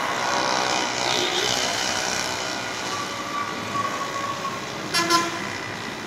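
Street traffic with vehicle engines running, and a short horn blast about five seconds in.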